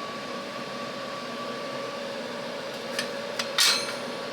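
WeCreat Vision 40 W diode laser engraver running with its fans and fume extractor: a steady machine hum with a few sharp clicks about three seconds in and a short hiss just after.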